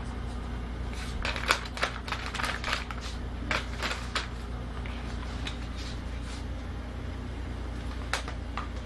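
Newspaper sheets rustling and crackling as a toddler handles them: a run of irregular crinkles in the first half, another near the end, over a steady low hum.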